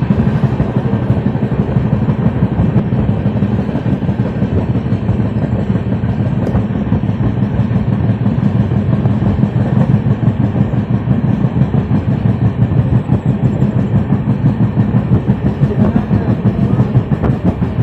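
Train wheels running over rail track at speed: a steady low rumble with a fast, uneven pulsing clatter.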